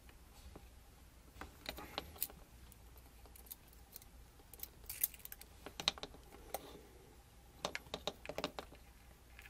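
Faint, irregular small clicks and taps in scattered clusters: alligator-clip test leads and wires being handled, clipped onto a small battery stack and plugged into a multimeter.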